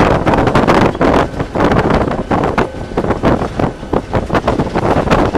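Wind buffeting the microphone in the cab of a moving Chicago and North Western SD40-2 diesel locomotive, over the locomotive's steady running rumble. The wind noise gusts unevenly throughout.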